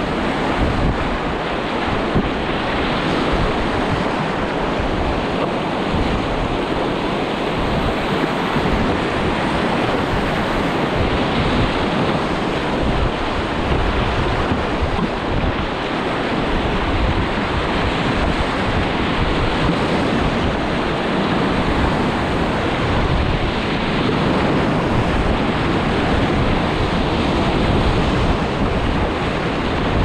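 Rushing whitewater and splashing around a racing kayak running down a river, a steady loud wash throughout, with wind buffeting the camera microphone.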